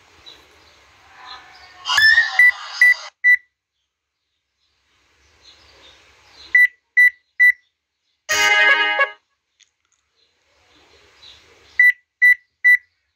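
Mobile phone alert sounds: a short startup sound with a rising tone about two seconds in, then three groups of three quick high beeps, the phone's low-battery warning, with a brief bright chime between the second and third groups.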